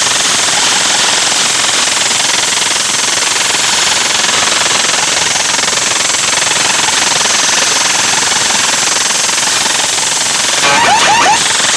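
Competition DJ sound system played at extreme volume and recorded so close that the microphone overloads, giving a steady, dense, crackling distorted noise rather than recognisable music. Near the end a few short whistle-like glides cut through.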